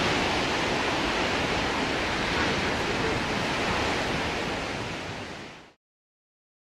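Large ocean waves breaking: a steady rushing wash of surf that fades and cuts off to silence about five and a half seconds in.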